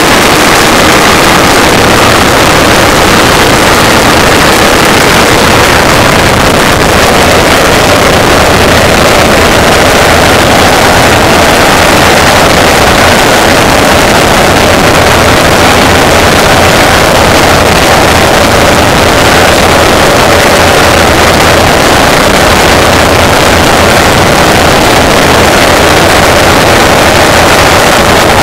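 Pulse jet engines running flat out, their tubes glowing red-hot: a continuous, very loud, rough buzzing blast with a steady tone running through it.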